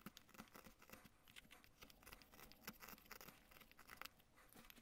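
Faint, irregular run of short scrapes and snicks as a Mora carving knife pares thin shavings from a padauk wood blank in quick, short strokes.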